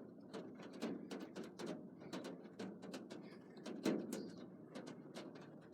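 Rain drops tapping irregularly, several taps a second, a few louder than the rest, over a steady low hiss.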